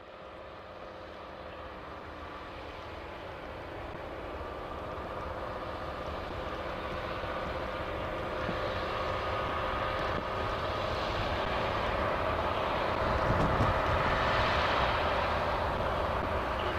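Boeing 777-200 on final approach, its two GE90 turbofans making a steady jet drone with a thin whine in it, growing louder as the airliner comes in low over the runway.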